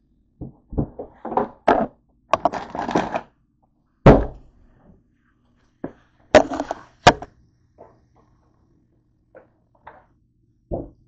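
Handling noise from a camera being picked up, carried and set down: a string of knocks, bumps and short rustles. The loudest thunk comes about four seconds in, with two more sharp knocks near the middle and faint taps after.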